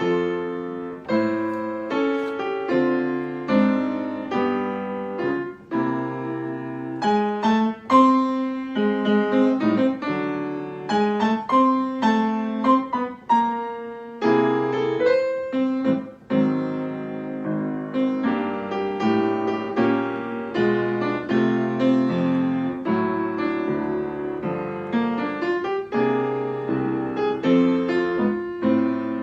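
Solo piano playing a melody over chords, the notes struck and fading one after another.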